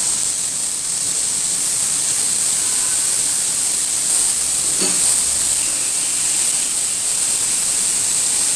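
Marinated chicken skewers sizzling in a little oil on a hot tawa, a steady high hiss, with a light knock about five seconds in as a skewer is set down.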